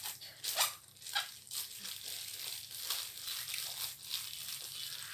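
Plastic bag crinkling as it is twisted and tied shut, with sharp crackles in the first second and a half, then softer continuous rustling.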